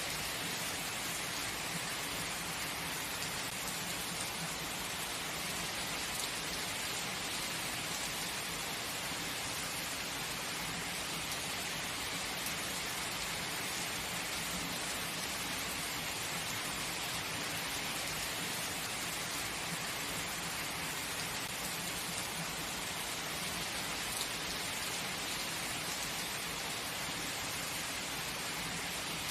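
Steady heavy rain falling, an even hiss of drops with no change in strength.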